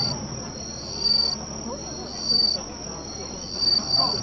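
Insects chirping in short high pulses about every 1.3 s over a steady high insect drone. The fading tail of a firework boom is heard at the very start.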